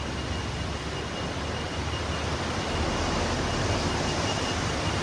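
Car driving through floodwater on a tunnel road: a steady rushing of tyres through water and road noise, growing a little louder about three seconds in, with a faint steady high whine.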